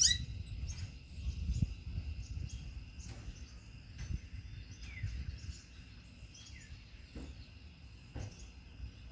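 Wind buffeting the microphone as an uneven low rumble, with a steady high insect trill and a few faint bird chirps.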